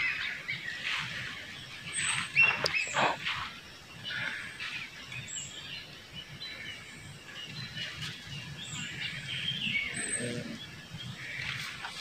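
Small birds chirping and calling, many short high notes overlapping, with a few sharp clicks about two and a half seconds in.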